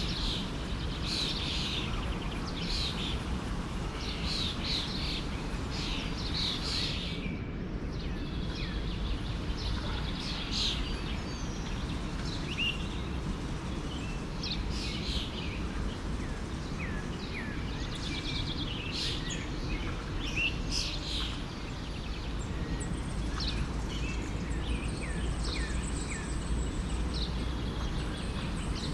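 Several birds chirping and trilling in quick short notes over the steady rush of a flowing forest stream. The chirping breaks off briefly about seven seconds in.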